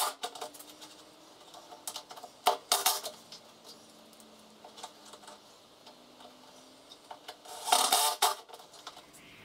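Cordless drill driven in three short bursts, near the start, a little over two seconds in, and near the end, with metallic clattering.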